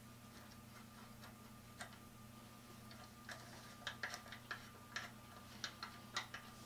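Faint, irregular light clicks and ticks from a treadle grinder's metal linkage rod and its heim-joint rod ends as the rod is worked by hand to turn the grindstone. The clicks come thicker and sharper in the second half, over a faint steady hum.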